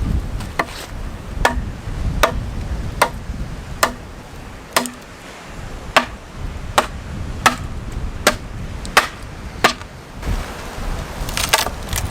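A steady series of about a dozen chopping strikes, roughly one every 0.8 seconds, each a sharp knock.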